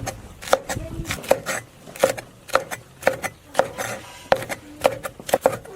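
Kitchen knife cutting green and red chili peppers on a cutting board, in steady strokes about two a second.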